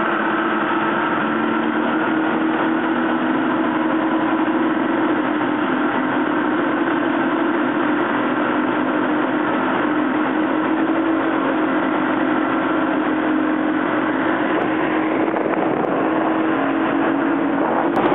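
Twin Mercury outboard motors running steadily at speed, over the rush of water and wind of a boat under way.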